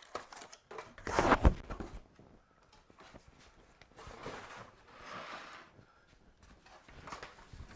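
A heavy plastic tool case being pulled out of a cardboard shipping box: cardboard rustling and scraping, with the loudest moment a thud and rustle about a second in, then softer scraping spells and a few light clicks.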